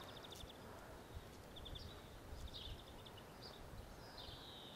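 Faint birdsong: small birds giving short, high chirps and quick trills several times over a low, rumbling background.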